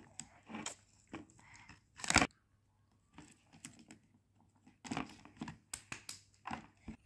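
Cardboard and plastic packaging of a toy tool set rustling, crinkling and tearing as it is pulled off the plastic case, with light plastic clicks. The loudest burst of tearing comes about two seconds in.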